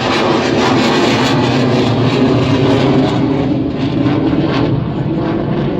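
Jet aircraft flying past overhead: a loud, steady roar, its hiss thinning a little past halfway as it draws away.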